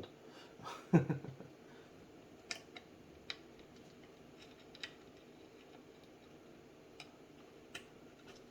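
Scattered small clicks, about five spread over several seconds, from hands and a flathead screwdriver working wires into a 3D-printer control board's screw terminals. There is a short voice sound about a second in.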